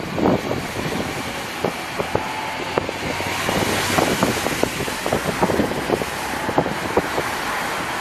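Citroën C4 Grand Picasso driving, heard from inside the cabin: a steady rush of road noise with frequent short knocks and clicks.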